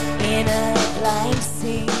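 A live rock band playing a song, with a woman singing lead over drum kit and guitars.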